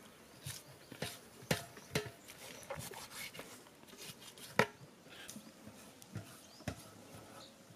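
Knife cutting and chopping a raw lamb carcass on a metal tray: irregular sharp knocks of the blade against bone and the tray, the loudest about four and a half seconds in.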